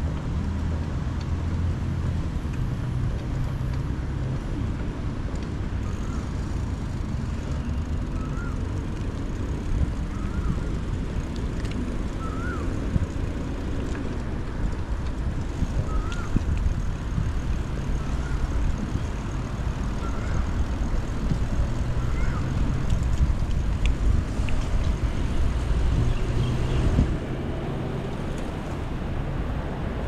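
Outdoor park ambience: a steady low rumble of road traffic, with a bird giving a short chirp every second or two through the middle. The rumble swells near the end, then drops off suddenly.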